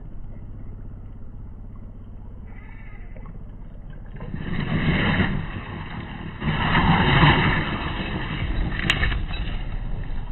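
Electric motor and gear drivetrain of a radio-controlled scale off-road truck running as it crawls through mud and shallow water, getting louder in two throttle surges, about four seconds in and again about six and a half seconds in.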